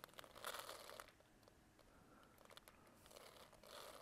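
Faint crinkling of a plastic bag of fishing pellets being handled, in the first second and again near the end.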